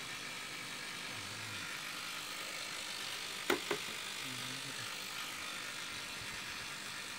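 Steady hiss, with two quick clicks about three and a half seconds in as a small Sony portable radio is picked up and handled.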